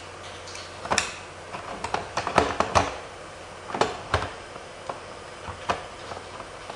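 Irregular sharp clicks and knocks, densest and loudest in a cluster about two to three seconds in, with a few scattered ones after, over a steady low hum.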